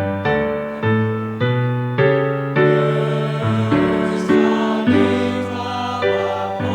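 A piano plays a gospel-style accompaniment of struck, decaying chords, and a choir comes in singing with it about a third of the way in.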